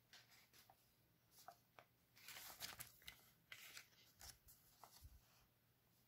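Faint crackling and rustling of a folded A4 paper zine being handled as its page is turned: a run of short, sharp crinkles, loudest and thickest a little past two seconds in.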